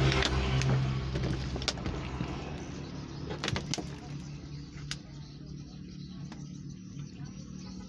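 Street traffic: a low motor engine hum, loudest at the start and fading, with a few sharp clicks.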